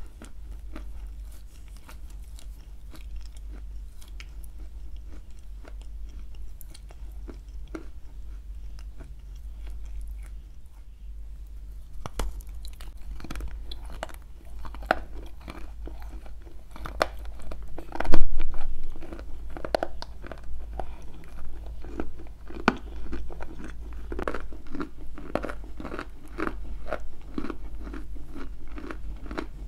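Close-miked crunching and chewing of hard, dry clay: bites snapping off a chunk and the pieces crunched between the teeth. The crunches are sparse at first, then come thicker and louder past the middle, with one loudest snap.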